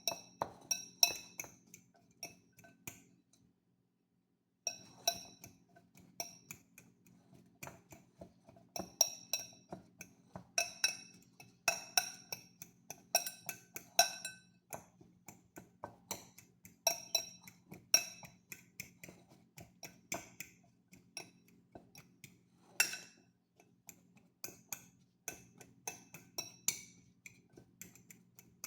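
A utensil repeatedly striking the inside of a glass bowl as food is smashed, giving uneven clinks about one or two a second, each with a short glassy ring.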